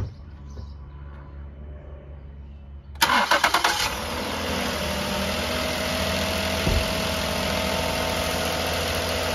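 Ford Taurus 3.5-litre V6 started: the starter cranks for under a second about three seconds in, the engine catches, and it settles into a steady idle.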